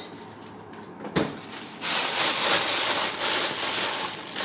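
A single knock about a second in, then plastic bag rustling and crinkling as it is handled and pulled open.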